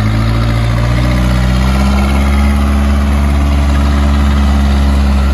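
Case 580K backhoe's four-cylinder diesel engine running steadily; its speed picks up a little at the start and again about two seconds in, then holds.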